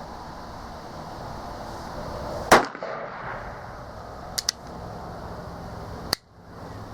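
A single shot from a .45 Long Colt Uberti 1875 Schofield revolver, a loud sharp crack about two and a half seconds in, followed by a pair of light clicks. Another shorter sharp crack comes near the end.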